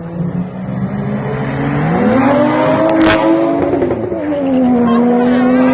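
Race cars accelerating hard. The engine pitch climbs about two seconds in, there is a sharp crack about three seconds in, and then the pitch drops and settles into a steady, loud note.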